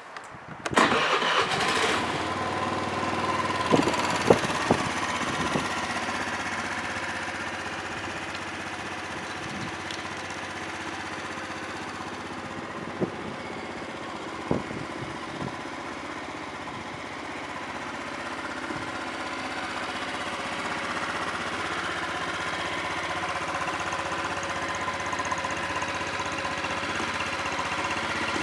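A Honda Lead 110 scooter's single-cylinder four-stroke engine, fitted with a Moriwaki aftermarket exhaust, is started on the electric starter and catches within a second, then settles into a steady idle; the engine is in good running order. A few short knocks come about four seconds in and again near the middle.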